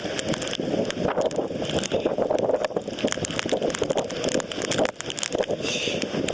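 Typhoon winds gusting hard and buffeting the microphone, a continuous rumbling rush with frequent crackling pops.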